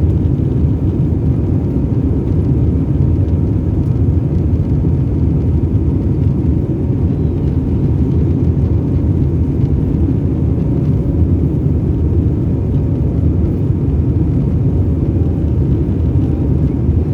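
Airbus A320 cabin noise during the climb after takeoff: a steady, even rumble of the jet engines and airflow, with a faint constant hum.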